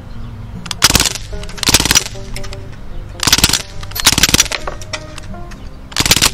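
Crosman DPMS Panther Arms SBR CO2 BB rifle firing five short full-auto bursts, each a rapid rattle of shots lasting about half a second, spread over about five seconds.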